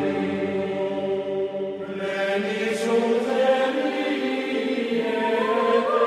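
Background music of slow, sustained choral chanting: long held notes that shift slowly, with higher voices coming in about two seconds in.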